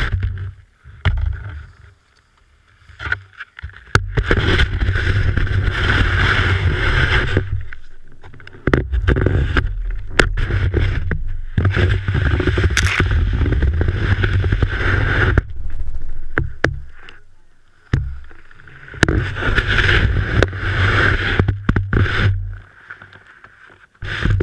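Telemark ski sliding over snow, heard from a camera fixed to the ski: long stretches of rushing, scraping hiss with a deep rumble, broken by several short pauses when the ski stops.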